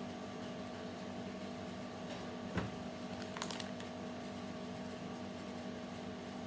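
Steady low mechanical hum of room tone with a few constant tones. There is a single soft click about two and a half seconds in and a short crackle about a second later.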